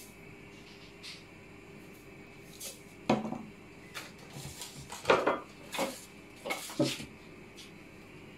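Scattered light clinks and knocks of kitchen containers and utensils being handled and set down, about eight in all, the sharpest about three and five seconds in.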